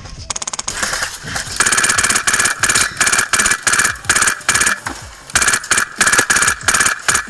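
Airsoft gun firing a rapid string of short full-auto bursts, each a fast run of clicks, starting about a second in.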